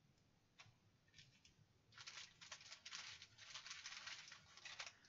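Faint crinkling and rustling of small plastic bags and paper being handled, with a light click about half a second in; the rustling starts about two seconds in and runs on densely for about three seconds.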